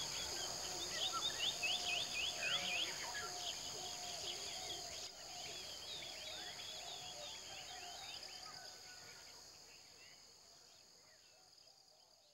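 Outdoor nature ambience: a steady high trilling of insects with birds chirping over it, fading gradually away over the last several seconds.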